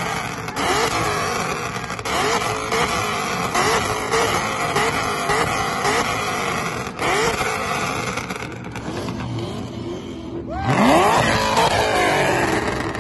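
Car engine revving in short blips, about two a second, then revving up hard in one long climb about ten and a half seconds in, the loudest moment.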